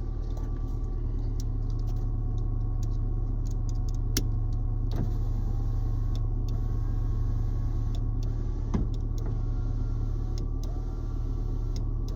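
Peugeot 207's electric window motor running the door glass with a newly fitted switch panel, over a steady low hum from the car, with a few faint clicks. The motor answering the switch shows that the replacement panel works.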